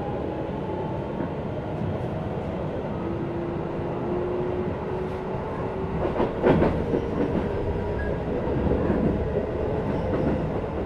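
Keisei 3050 series electric train's Toyo IGBT-VVVF inverter and traction motors whining, rising slowly in pitch as the train gathers speed, heard from inside the motor car over steady wheel and rail noise. A short clatter of wheels over rail joints comes about six seconds in.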